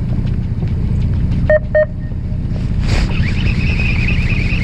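Fishing boat's engine running at idle, a steady low rumble. Two short beeps come about a second and a half in, and from about three seconds a high, fast-fluttering whine joins it.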